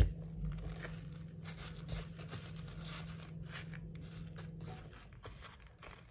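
Damp moss being pulled apart, pressed and spread by hand, with soft rustling and crackling, and a sharp knock right at the start.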